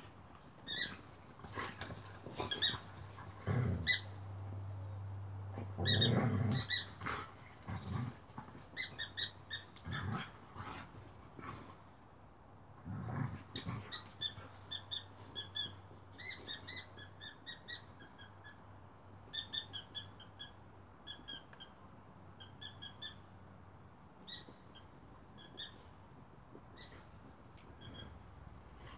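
Dog chewing a squeaky toy dinosaur: runs of short, high squeaks, coming thickly in the second half. Earlier there are several louder knocks and scuffles from the dog's play.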